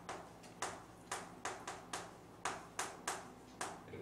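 Chalk striking and scratching on a blackboard in short, sharp, uneven strokes, two to three a second, as words are written.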